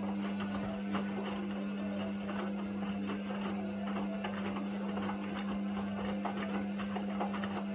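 Indesit washing machine tumbling a load of towels in a 90°C boil wash: the wash motor hums steadily while the turning drum and laundry give a stream of small knocks. The hum stops right at the end as the drum comes to rest.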